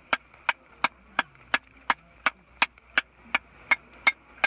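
A hammer knocking on a conch shell in a steady rhythm of sharp strikes, about three a second. It is chipping a hole in the back of the shell so the muscle can be cut loose and the conch pulled out.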